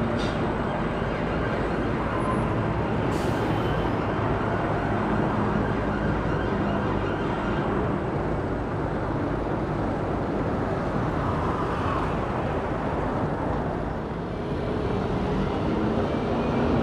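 Steady city road traffic: engines and tyres of cars and buses rumbling along a busy street, with a short hiss about three seconds in.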